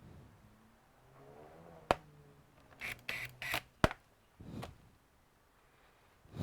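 Two sharp clicks about two seconds apart, with short scraping and rustling noises between them and a soft knock near the end: a laptop being handled on the workbench.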